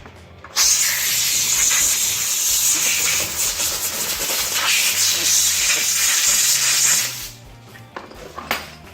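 A steady, loud hiss of a cleaning spray being blown over the engine parts, starting sharply about half a second in and cutting off after about six and a half seconds.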